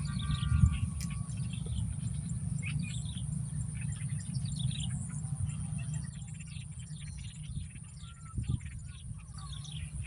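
Birds chirping repeatedly in short, quick falling notes, over a continuous low rumble.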